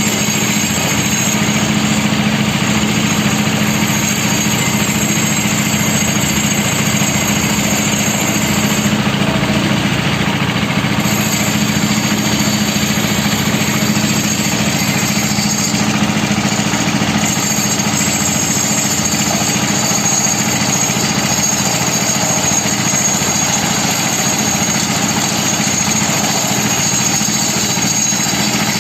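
Concrete mixer's engine running at a steady speed.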